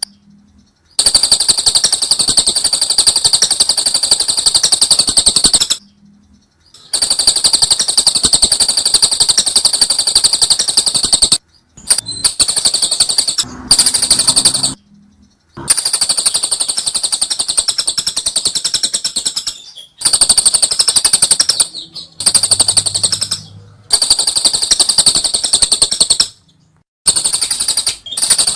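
Lovebird singing its 'ngekek' song: long bouts of rapid, rattling high-pitched chatter, each a few seconds long, broken by short pauses of about a second.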